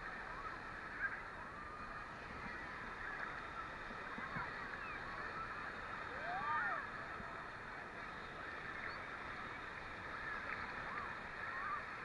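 Choppy Black Sea waves sloshing and washing in steadily, with many faint, distant voices and calls of people over the water noise and one louder call about six and a half seconds in.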